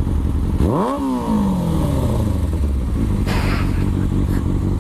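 Sportbike engines idling at a stop. About a second in, one is blipped: a quick rev that shoots up and then falls back to idle over about two seconds.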